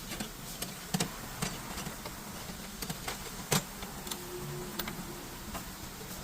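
Scattered light clicks and taps at uneven intervals over a steady background hiss, typical of hand work on parts or tools.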